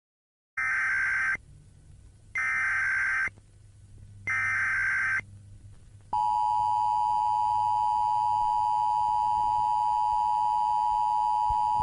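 Emergency Alert System tones: three short bursts of SAME header data, each a harsh digital screech about a second apart, then, about six seconds in, the steady two-tone EAS attention signal.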